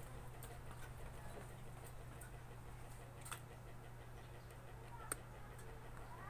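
Quiet room tone with a steady low hum and a few faint sharp clicks, the clearest about three and five seconds in.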